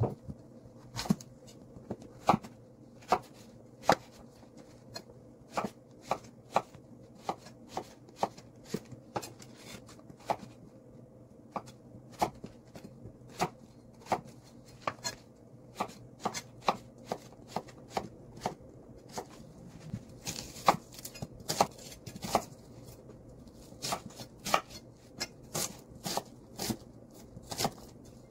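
Kitchen knife chopping zucchini and then onion on a thick wooden cutting board: sharp, irregular knocks of the blade striking the board. The strokes come about once a second at first and come faster in the last third.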